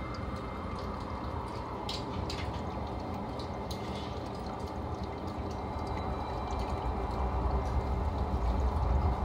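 Aquarium water trickling and bubbling steadily, with a few faint clicks about two and four seconds in. A low rumble builds near the end.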